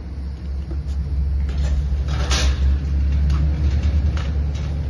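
A steady low rumble of outdoor background noise, with a few short knocks and clatters, the loudest a little over two seconds in.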